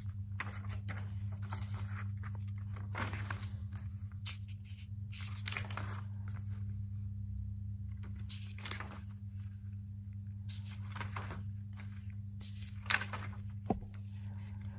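Paper pages of a plastic model kit's instruction manual being turned and smoothed flat by hand, crinkling and rustling in short strokes every second or two, over a steady low hum.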